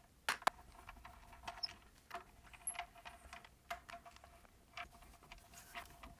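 Faint, scattered small clicks and scratches of a screwdriver backing out the screws of the tweeter horn on a Klipsch R-25C speaker's baffle, over a faint steady tone.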